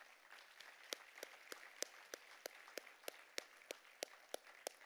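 Audience applauding, with one pair of hands clapping close by, standing out in a steady beat of about three claps a second.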